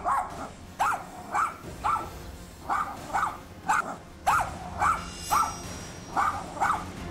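Small dog barking persistently, about two sharp high barks a second in runs with brief pauses.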